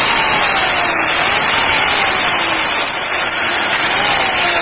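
Mace Plus MT-CS1400 handheld electric circular saw running at full speed with no load: a loud, steady whir of the motor and spinning blade, its pitch wavering slightly up and down a few times.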